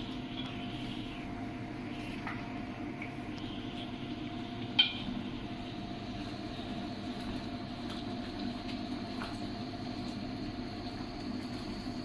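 Wooden spatula stirring thick chicken and potato curry in a stainless-steel pot, with a few light knocks against the pot and one sharp clink about five seconds in, over a steady low hum.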